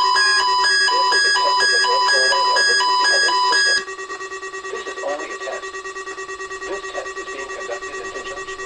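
Synthesized electronic alarm tones: several beeping tones pulse about twice a second over steady tones, then cut off abruptly about four seconds in. Quieter steady tones carry on after the cut.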